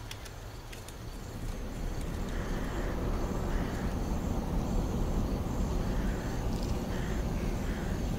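Car driving downhill, a steady rumble of tyre and wind noise that swells about a second or two in as it picks up speed. Faint insect chirps come through now and then.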